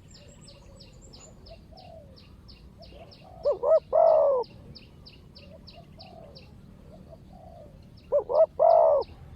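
Spotted doves cooing: two loud phrases, each of two short notes followed by a longer one, about three seconds in and again near the end, with fainter coos in between. A high chirp repeats about four times a second throughout.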